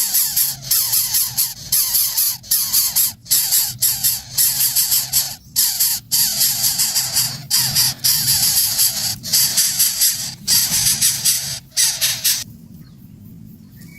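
Nestling birds in a greater coucal nest making a rapid, uneven series of loud raspy hissing bursts, a few a second, that stop abruptly about twelve seconds in.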